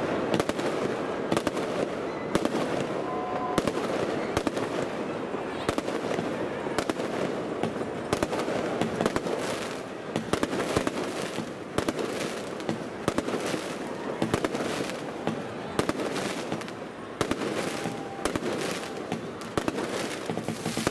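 Aerial fireworks shells bursting close overhead: a continuous run of sharp bangs, at times several a second.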